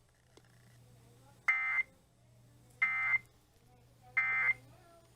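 Emergency Alert System end-of-message (EOM) data tones: three short, identical buzzy bursts of digital AFSK data, evenly spaced about a second apart. They mark the end of the broadcast severe thunderstorm warning.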